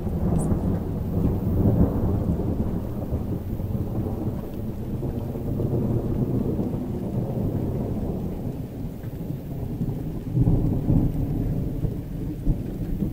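Thunderstorm: rolling thunder rumbling over steady rain, swelling louder about two seconds in and again near the ten-second mark.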